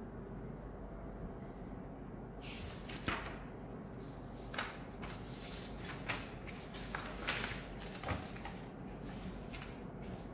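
Writing: a series of short, irregular scratchy strokes, starting about two seconds in, over a faint steady hum.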